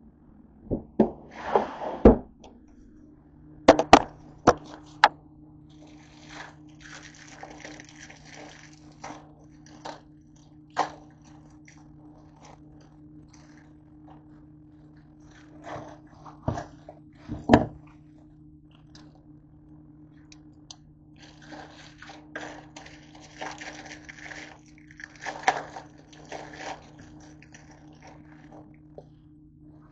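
Plastic instant-ramen packets crinkling and being handled, with several sharp knocks and thuds as things are set down on the counter. A steady low hum starts a few seconds in and runs underneath.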